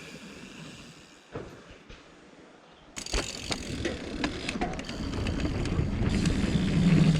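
Mountain bike setting off down a dirt trail: fairly quiet with a few clicks for about three seconds, then a sudden rush of tyre noise, rattles and clicks from the bike, growing steadily louder as speed picks up, with wind on the microphone.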